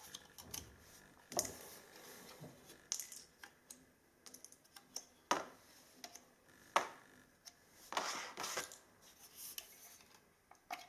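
Protective covers being pulled off a graphics card by hand: irregular faint clicks, crackles and short rustles.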